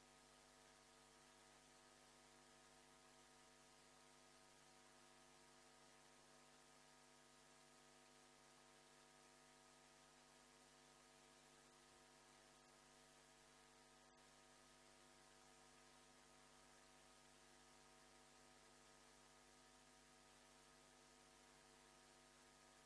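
Near silence: a faint, steady electrical hum over low hiss.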